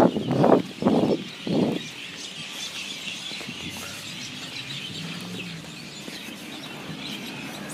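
Rhythmic thumps about twice a second, as of a person running with the camera, stopping about two seconds in; after that, birds chirping in the background.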